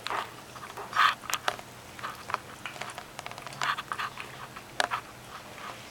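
Scottish terrier puppy chewing and crunching pieces of a sweet potato chew, in irregular crisp crunches, the loudest about a second in.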